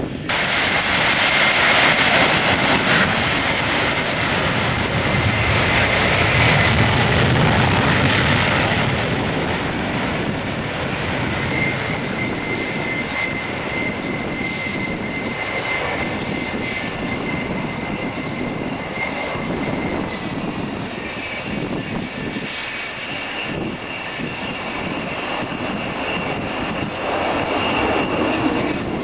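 Military jet engines running loud as a fighter taxies, then an F-4 Phantom's twin J79 turbojets holding a steady high whine on the runway. The whine rises in pitch about two-thirds of the way through and grows louder near the end as the engines spool up for takeoff.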